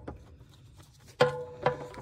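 Two sharp metal clanks on the snowplow's steel hardware, about a second in and again half a second later, each ringing on with a twangy tone. A few light clicks come before them.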